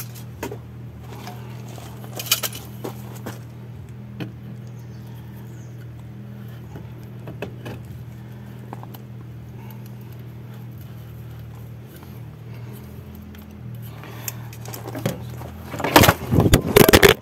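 Light metallic clinks and rattles of exhaust parts being handled and clamped, over a steady low hum. About sixteen seconds in comes a burst of loud clattering knocks: a mishap, with something slipping or being knocked against the pipe.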